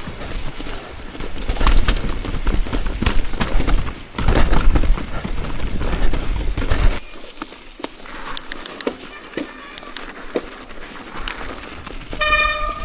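Electric mountain bike riding down a rough dirt trail: a loud rumble of tyres on dirt and roots with the bike's chain and frame clattering. About seven seconds in, it drops abruptly to quieter tyre noise with scattered ticks, and a short high tone starts just before the end.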